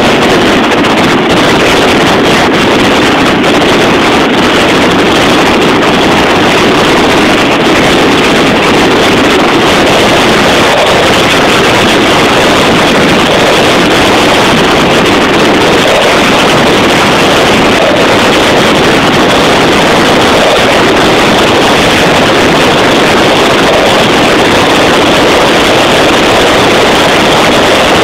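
Fireworks display in a dense barrage, the explosions so close together and loud that they merge into one steady, distorted noise with no separate bangs standing out.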